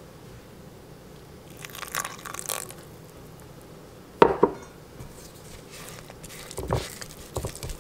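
Silicone spatula stirring a stiff, dry flour-and-water sourdough starter in a crock, with soft scraping and crunching against the sides. One sharp knock about four seconds in.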